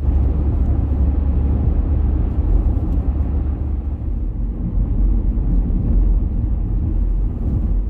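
Car driving along a road: a steady, heavy low rumble.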